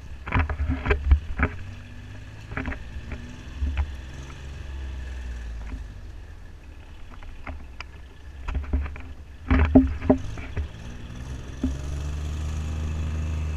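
Bicycle rolling over brick paving with a low wind-and-tyre rumble and scattered sharp rattles and knocks from the bike and camera mount. Near the end the rumble grows steadier and louder.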